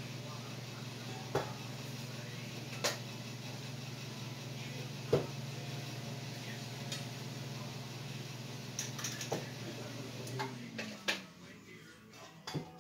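A steady motor hum that winds down, falling in pitch, and stops about ten seconds in, with a few scattered light metallic clinks and clicks, the loudest about five seconds in.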